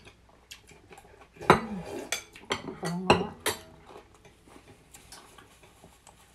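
Metal spoons and chopsticks clinking and scraping against glass bowls while eating noodle soup, with broth being sipped from a bowl. The clinks are loudest and most frequent between about one and a half and three and a half seconds in.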